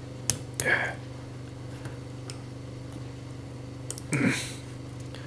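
A few sharp clicks and faint taps from the parts of a die-cast and plastic toy robot figure being handled and pressed together, mostly in the first second. A short vocal sound comes just under a second in and another about four seconds in, over a steady low electrical hum.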